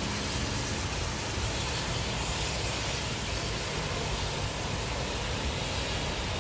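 Steady rushing noise of wind and rain, with a fluttering low rumble from wind buffeting the microphone.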